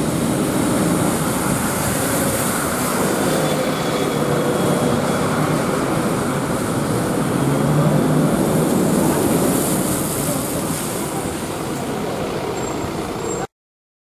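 City buses' engines and tyres as they drive past close by: a double-decker pulling away, then a single-decker passing, loudest about eight seconds in. The sound cuts off suddenly near the end.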